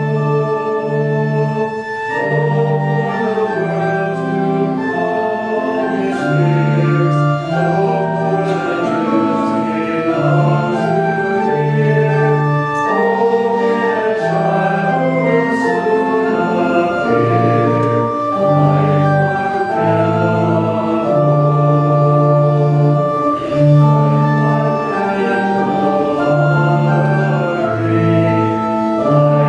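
Church organ playing a hymn tune in sustained chords over a moving bass line, accompanying the congregation's Advent hymn.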